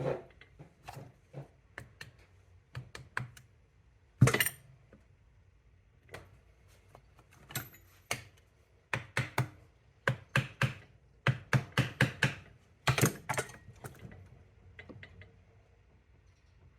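Irregular metal clicks and knocks from Triumph T100C gearbox parts being fitted together by hand, with one loud knock about four seconds in and a quick run of clicks in the second half.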